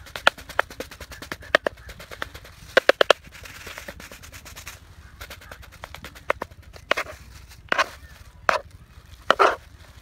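Knife chopping through minced dove meat, onion and spices on a plastic cutting board: quick runs of sharp taps, then single heavier strikes about a second apart near the end.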